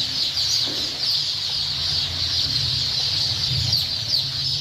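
Large flock of broiler chicks peeping all at once: a dense, continuous chorus of high cheeps over a low hum.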